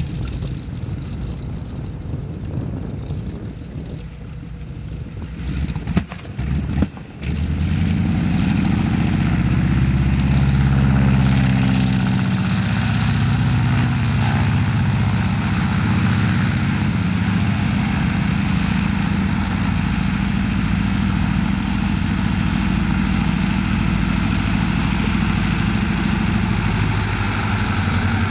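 Radial engine of an agricultural crop-duster running on the ground with its propeller turning. It is fainter at first. After a break about a quarter of the way in, it is close and loud, its pitch rises for a couple of seconds, then it runs steadily.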